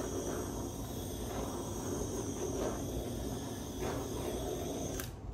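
Handheld torch flame hissing steadily as it is passed over wet poured acrylic paint, shut off suddenly about five seconds in.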